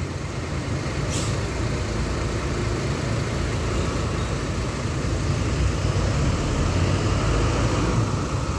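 Hino RN285 coach's diesel engine running as the bus moves slowly past, a steady low rumble. A brief hiss of air sounds about a second in.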